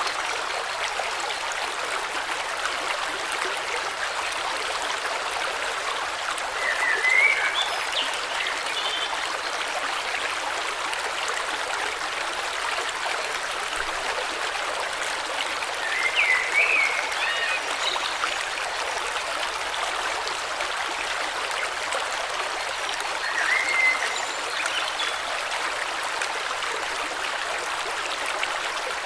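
A river flowing steadily, with short bird chirps heard a few times over the water.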